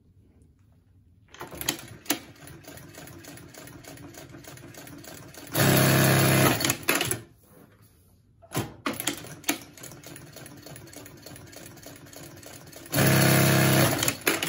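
Consew 2206RB-14 direct-drive walking foot industrial sewing machine stitching fabric in two runs. Each run opens with slow, separate stitch clicks, the machine's soft start, then speeds up to full sewing speed for about a second and stops abruptly.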